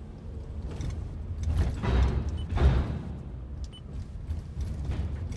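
Road noise inside a minivan's cabin as it drives slowly off a car ferry: a low rumble, with a few louder bumps about two to three seconds in.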